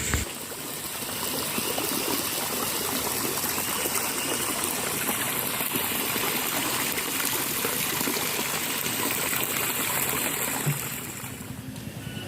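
Running water flowing steadily, a stream or channel swollen by the rain, fading away near the end.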